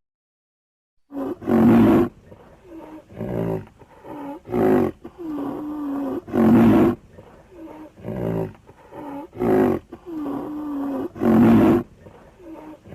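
A large animal calling over and over in a regular rhythm: loud rasping cries about every second and a half, with quieter wavering pitched notes between them.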